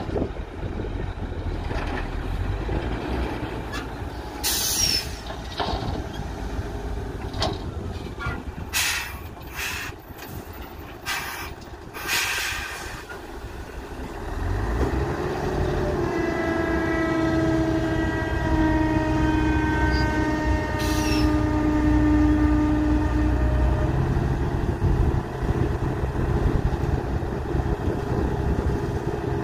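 Diesel tipper trucks running, with several short hisses of compressed air in the first half. About halfway through, the tractor unit's engine revs up and holds a high steady drone with a whine as it drives the hydraulics raising the semi-trailer's dump body, then eases off a little near the end.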